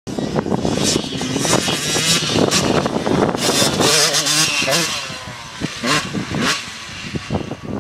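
Yamaha YZ125 two-stroke dirt bike engine revving hard with the pitch rising and falling as the rider works the throttle, then quieter as the bike moves away about five seconds in.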